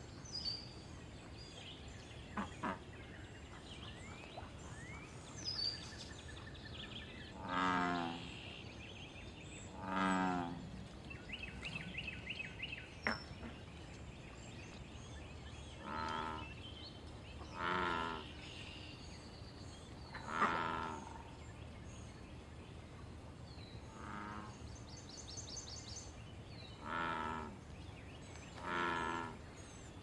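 American bullfrog calling: about eight low croaks, each under a second long, several coming in pairs a second or two apart.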